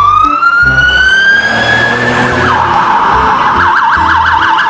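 Police siren: a slow rising wail for about two and a half seconds, then a drop into a fast warbling yelp.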